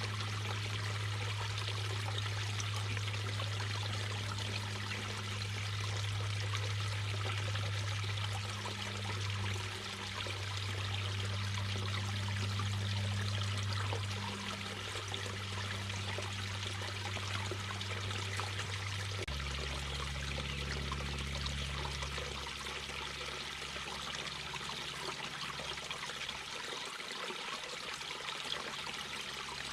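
Mountain brook babbling steadily over stones. A low steady hum runs underneath, drops in pitch about two-thirds of the way through, then fades.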